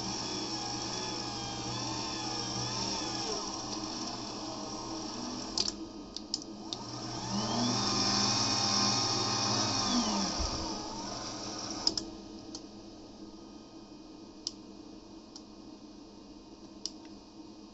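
Small electric motors whirring under remote control on a refurbished replacement logic board being bench-tested. The first run lasts about six seconds. A second run spins up at about seven seconds, holds, and winds down around ten seconds. After that only a faint hum and a few scattered clicks remain.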